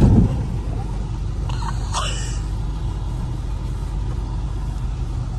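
Steady low rumble of a Subaru being driven over a dirt track, heard from inside the cabin, with a sudden loud thump at the very start.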